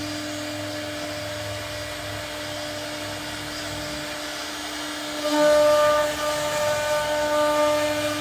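CNC router spindle running with a steady high whine. A little over five seconds in it gets louder and higher tones join in, as the bit cuts into the wood.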